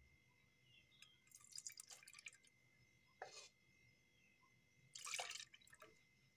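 Milk mixed with curd starter being poured into a steel bowl: faint splashing and dripping in a few short spells, the loudest about five seconds in.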